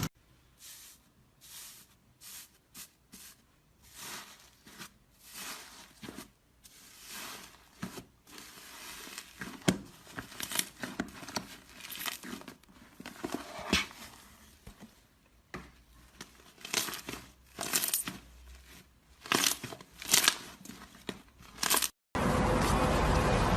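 Slime worked by hands, squished, pulled and torn apart. It gives irregular short crackling and tearing sounds, sparse at first and busier after the first several seconds. Near the end it cuts to a steady hiss.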